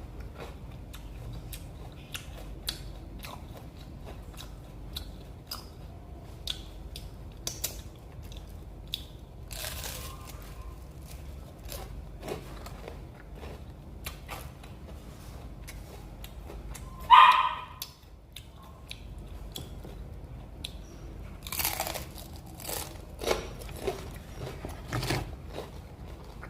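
Close-up chewing and crunching of crispy fried vegetable fritters (bakwan sayur), with scattered sharp crunches. One brief, louder sound stands out about two-thirds of the way through.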